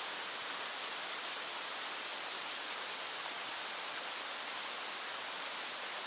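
Small stream flowing, a steady, even rush of water with no breaks or distinct events.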